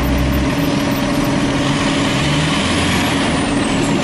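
Heavy vehicle engine and road noise on the move: a loud, steady low drone. Near the end a faint high whistle falls in pitch.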